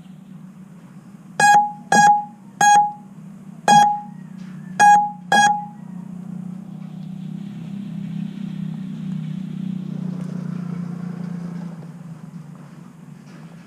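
Six short electronic beeps, unevenly spaced over about four seconds, from an FPV quadcopter, over a steady low hum; a louder rushing noise swells up after the beeps and fades near the end.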